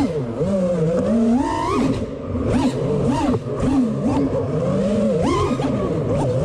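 4S FPV racing quadcopter's brushless motors whining, the pitch swooping up and down quickly and repeatedly with the pilot's throttle changes.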